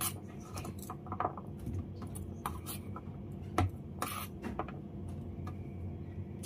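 Kitchen knife and cut celery sticks clicking and scraping on a stainless steel cutting board as the pieces are gathered up: irregular light clicks and knocks, one sharper knock a little past the middle.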